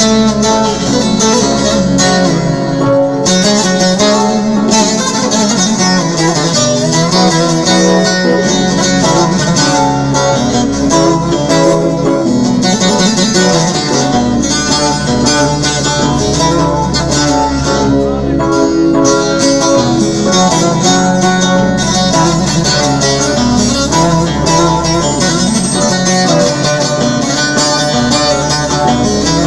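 Instrumental music led by plucked string instruments, with bowed strings and a steady bass underneath; no singing.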